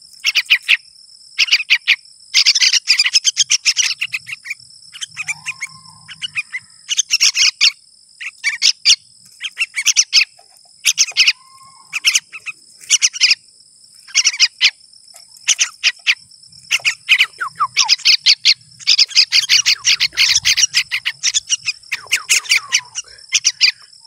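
Yellow-vented bulbul fledglings begging: bursts of rapid, harsh chirps every second or two, over a steady high insect whine.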